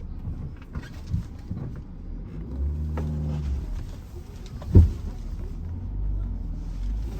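Maruti Suzuki Grand Vitara's engine pulling under throttle over rough off-road ground, rising briefly about three seconds in. There is one loud thump just before five seconds in.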